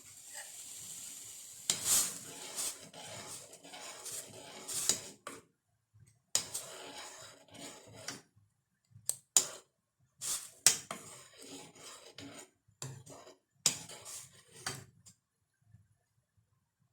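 A spoon stirring and scraping around a saucepan of heating milk, clinking against the pan, in several spells with short pauses between them. It stops about fifteen seconds in.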